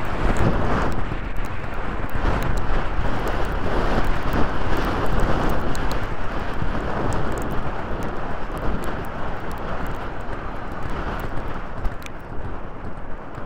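Wind rushing over a helmet-mounted camera's microphone as a horse gallops across country, with the horse's hoofbeats underneath and scattered sharp ticks.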